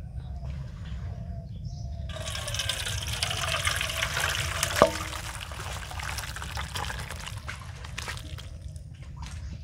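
Thin fish curry poured from a metal pot into a steel bowl. A splashing pour starts about two seconds in, and a single ringing metal clink comes midway. Then the chunks of fish, potato and cauliflower slide out with a few small knocks.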